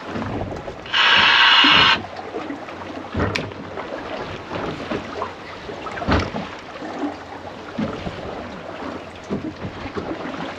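Wind on the microphone and sea noise aboard a small fishing boat, with a few knocks around the deck. About a second in, a loud buzzing tone lasting about a second starts and stops abruptly.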